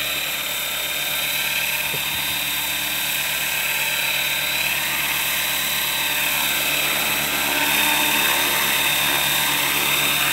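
Sniper RC helicopter hovering low: a steady high whine of its motor and spinning rotors, growing a little louder near the end.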